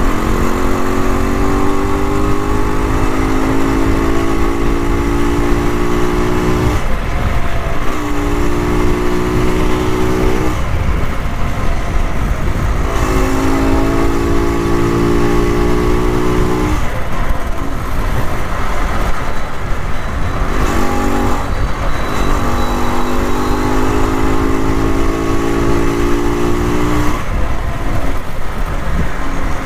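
Rajdoot 175's single-cylinder two-stroke engine pulling the motorcycle along at road speed. It comes in stretches of a few seconds, each rising slowly in pitch and then breaking off, over a steady low wind rush on the microphone.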